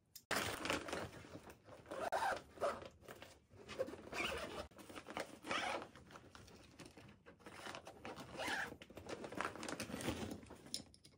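Zipper on a soft fabric rolling garment bag being drawn around to close it, in a series of uneven pulls with short pauses between.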